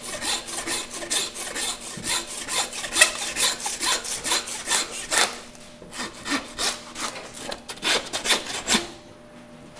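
A butcher's knife being honed on a long steel: rapid scraping strokes of blade on rod, about three a second. After about five seconds the strokes come further apart, and they stop shortly before the end.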